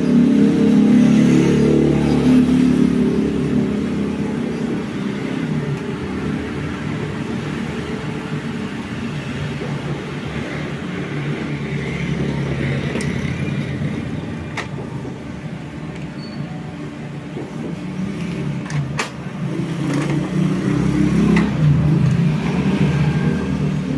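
Epson L3110 inkjet printer printing a page: its carriage and paper-feed motors run with a steady whirring, louder at the start and again near the end. A few sharp clicks come in the second half.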